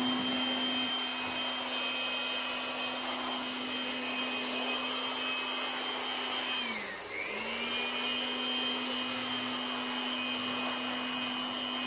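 Handheld electric blower running steadily with a motor whine, blowing dust and dirt out of the cabinet. About seven seconds in it winds down briefly, then starts again and winds back up.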